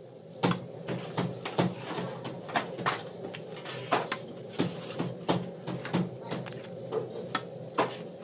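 Hands kneading a crumbly cake mixture in a metal karahi, with sharp irregular knocks and taps against the pan, about one or two a second, as eggs are cracked into it.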